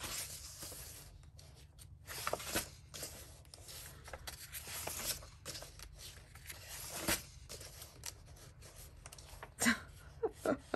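Paper pages of a paperback coloring book being turned and pressed flat by hand: several short rustles as pages flip, with softer rubbing of hands on the paper between them.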